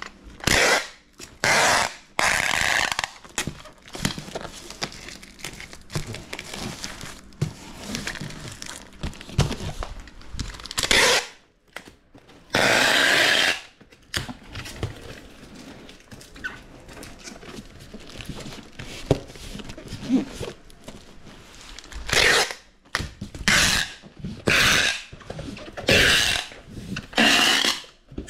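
Packing tape pulled off the roll in about ten loud ripping strips, short and long, with pauses and handling noise between, as a cardboard shipping box is taped shut.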